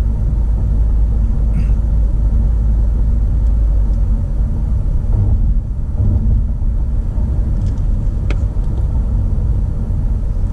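Car driving at road speed, heard from inside the cabin: a steady low rumble of road and engine noise, with one brief click about eight seconds in.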